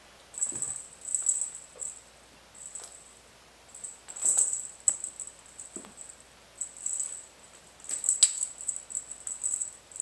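A small toy bird being batted about by kittens, giving off short bursts of high-pitched jingling over and over, with a few soft thumps in between.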